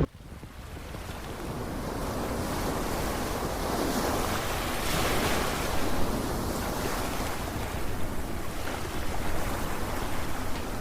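Sea waves washing, with wind rumbling on the microphone. The sound fades in over the first couple of seconds, then swells and ebbs.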